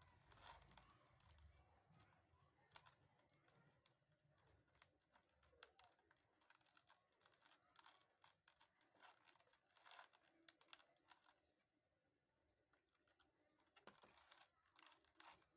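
Very faint, irregular wet squishing and light clicks of a hand mixing thick batter in a steel bowl.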